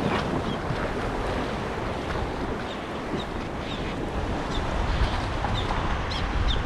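Wind buffeting the microphone over the wash of sea water, the low rumble swelling near the end, with scattered light ticks.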